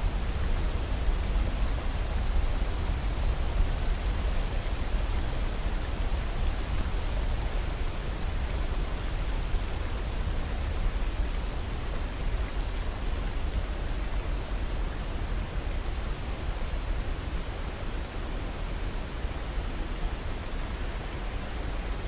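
Whitewater of a mountain river rushing over boulders below a waterfall: a steady, unbroken rush of water with a deep low rumble underneath.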